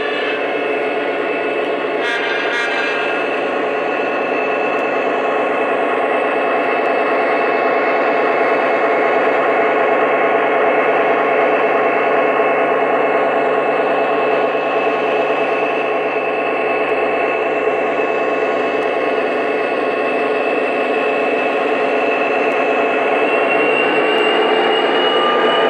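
Lionel O-gauge Union Pacific DD35A model diesel locomotive running along the track, its onboard sound system playing a steady diesel engine sound over the running noise of the model. A short crackle of clicks comes about two seconds in, and a whine rises slightly near the end.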